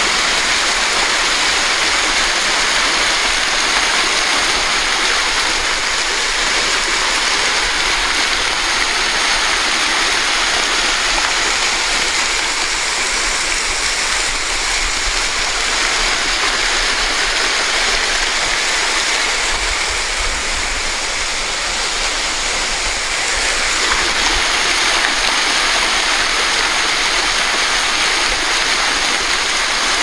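Waterfall about 20 m high, its water sliding down a rock face into a plunge pool: a steady rushing hiss, a little softer for several seconds midway.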